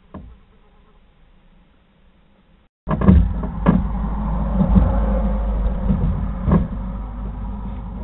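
Handling noise on a wooden barn owl nest box: about three seconds in, sudden bumps and knocks start over a low rumble, as the box is opened and a hand reaches in to put a rescued owlet inside.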